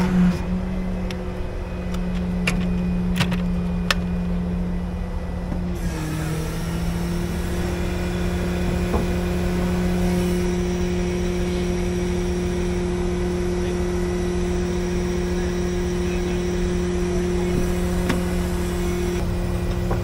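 Truck engine running at steady revs, its pitch stepping up slightly about six seconds in. A few sharp clicks come about two to four seconds in.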